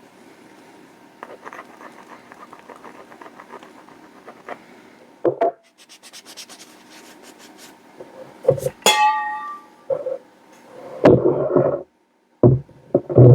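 Quick, even hand rubbing and scraping strokes on a scrap steel block as it is cleaned up. Partway through come a knock, then a metallic clink that rings briefly, then several heavier thumps near the end.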